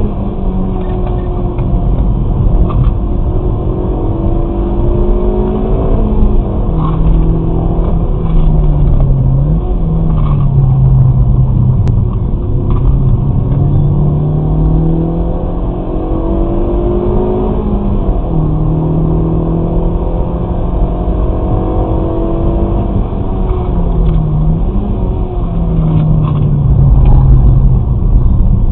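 Kia Forte Koup's 1.6 GDI four-cylinder engine, on stock intake and exhaust, driven hard on a circuit and heard from inside the cabin. Its pitch climbs and drops back several times as the manual gearbox is worked through braking and acceleration, over steady tyre and road noise.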